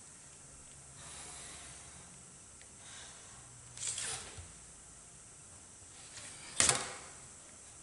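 Pencil and clear plastic ruler on drawing paper: faint scratching of pencil strokes and the ruler being slid and set down, with a short scrape just before the middle and a louder, sharper one near the end.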